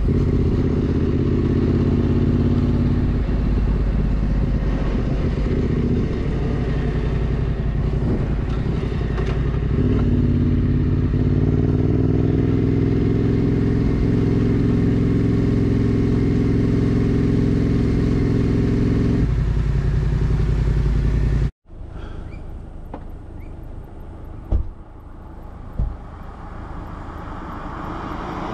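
Yamaha Ténéré 700's parallel-twin engine running steadily at road speed, its note shifting slightly about a third of the way in. After a sudden cut about three-quarters of the way through, the sound is much quieter, with two short knocks.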